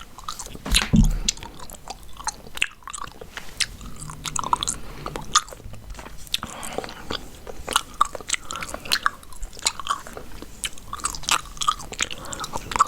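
Chewing gum into a close microphone: a dense, irregular run of short mouth clicks and snaps.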